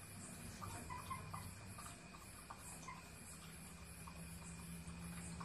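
Dog lapping and eating from a plastic bowl: small, soft, irregular wet clicks, over a low steady hum and faint chirping of insects.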